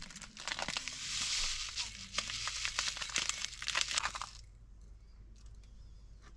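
Paper bag of sesame seeds crinkling and rustling as the seeds are shaken out onto a plate, a dense crackle for about four seconds that then stops, leaving only a few faint ticks.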